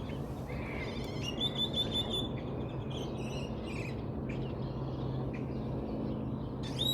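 Small birds chirping and twittering in quick short calls, busiest in the first half, over a steady low hum.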